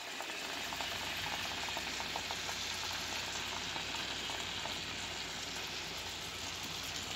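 Curried sautéed onions sizzling steadily in a hot frying pan as canned coconut milk is poured in.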